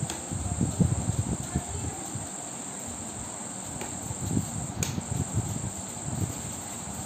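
Hand knitting with metal needles close to the microphone: soft, irregular rustling and handling of yarn and needles as stitches are purled, with one sharp click of the needles about five seconds in. A steady high-pitched tone runs underneath.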